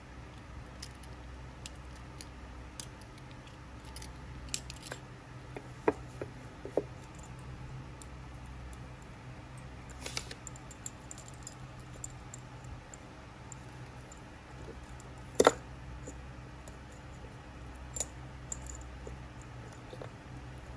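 Small metal clicks and clinks of a steel treble hook, split ring and fishing pliers being worked together on a bladed spinner lure, with a few sharper taps, the loudest about fifteen seconds in. A faint steady hum lies underneath.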